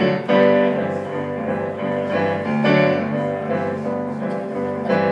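Electric keyboard played in a piano voice: an instrumental passage of chords over a bass line, without singing.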